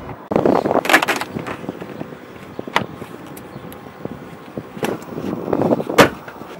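Someone climbing into the back seat of a car: rustling and shuffling, a single click about three seconds in, then a car door shut with a sharp thud near the end.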